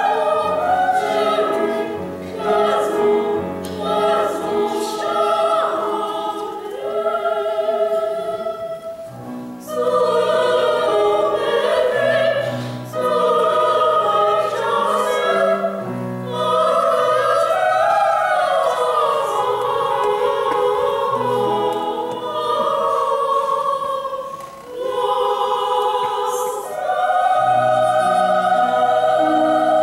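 Ensemble of women singing in operatic bel canto style, several voices in long held phrases, with short breaths between phrases about nine seconds in and again near twenty-five seconds.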